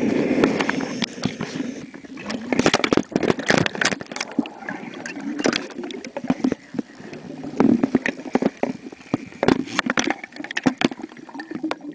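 Scuba diver's exhaled air bubbles gurgling and rumbling past an underwater camera, with many irregular clicks and pops.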